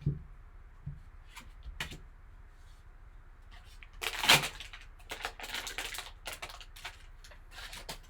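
Trading card packaging being opened by hand: a few knocks, then a loud crackle about four seconds in, followed by bursts of crinkling and rustling.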